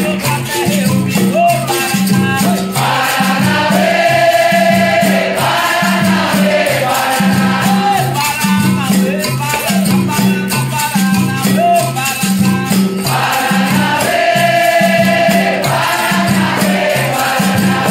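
Capoeira roda music: a group chorus sings sustained response phrases twice over a steady percussion beat with a shaken rattle, the berimbau-led ensemble of a capoeira song.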